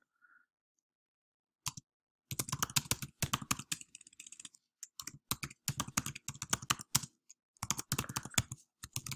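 Typing on a computer keyboard: near silence at first, a single keystroke about a second and a half in, then a fast, continuous run of key clicks.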